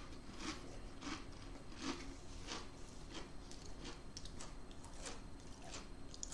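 A mouthful of Pringles potato crisps being chewed, with a soft crunch about twice a second.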